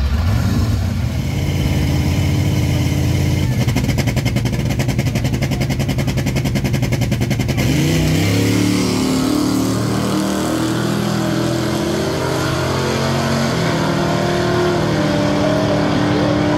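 Hard-tire drag race car engines staging and launching. An engine revs on the line with a fast even pulsing, then about eight seconds in the pitch sweeps up as the cars launch and accelerate, climbing in steps through the gear changes.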